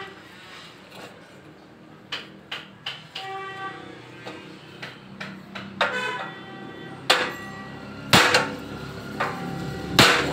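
Hammer blows on the accident-bent steel frame of a Honda CD70 motorcycle, struck through a wooden block held against it to straighten the frame. About ten irregular blows, several with a short metallic ring, the heaviest in the second half.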